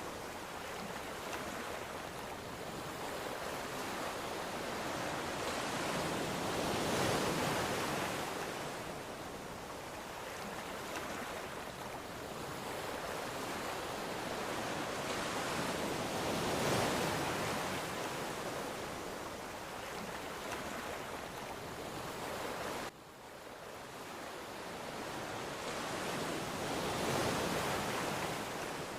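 Ocean waves washing onto a shore, a wide hiss of surf that swells and ebbs with a peak about every ten seconds. It drops off abruptly about three-quarters of the way through, then builds again.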